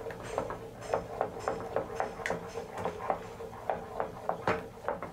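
Wooden spatula stirring matcha white-chocolate cream in a metal saucepan, knocking and scraping against the pan's sides in a quick, even run of light taps, about three a second.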